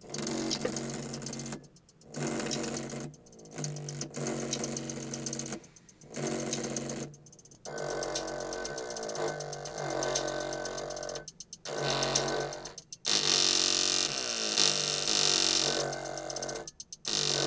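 Music played through a small Logitech Z150 speaker driver whose cone is on fire, coming in phrases of a beat with short silent breaks between them.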